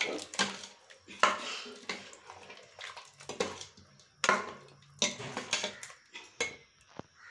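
Metal ladle stirring thick, wet ground-masala gravy with chicken pieces in a stainless-steel pot: irregular scrapes and clinks against the pot, roughly one a second, with wet sloshing.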